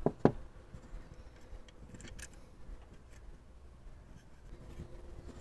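Small clicks and taps of hands handling a plastic RV plug housing and a screwdriver: two sharp clicks right at the start, then faint scattered ticks.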